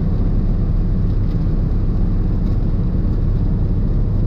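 1985 GMC 3500's 6.2-litre V8 diesel running steadily at cruising speed, heard from inside the cab, with steady road noise on a wet road.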